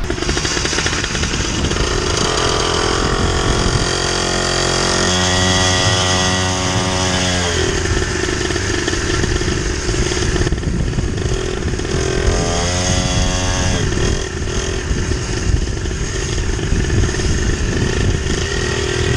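Small dirt bike engine running under the rider as it is ridden along a gravel track. Twice the engine note holds steady for a few seconds and then drops away as the throttle eases.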